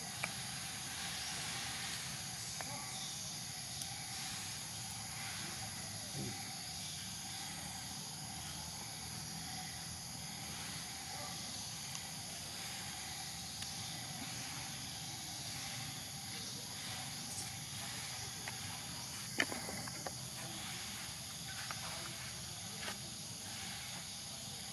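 Steady high-pitched drone of insects in the woods, with a few faint clicks and taps, the sharpest about nineteen seconds in.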